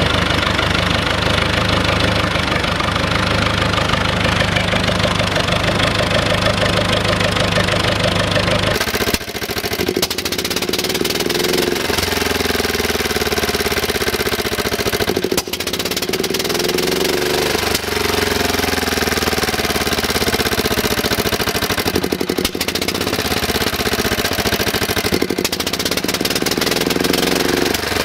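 UTB DT445 tractor's diesel engine running steadily; about nine seconds in it gives way to the single-cylinder Lombardini engine of a BCS walk-behind mower running, its speed rising and falling several times.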